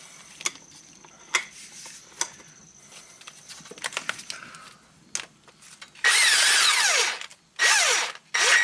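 Handheld power tool spinning down the center bolt of a new exhaust VVT phaser on a camshaft: a run of about a second with the pitch falling as the bolt draws in, then two short bursts near the end. Before that, light clicks of metal parts being handled.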